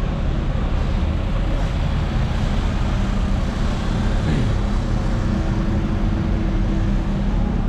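Steady rumble of idling and slow-moving car and minibus engines in congested street traffic.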